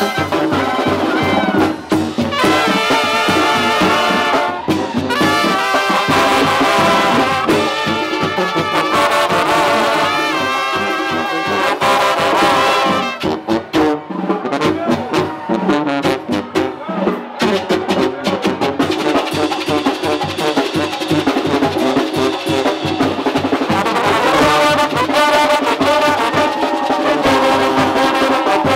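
Live brass band playing: clarinets, trumpets, trombones and sousaphones over drums. The music thins briefly about halfway through, then carries on full.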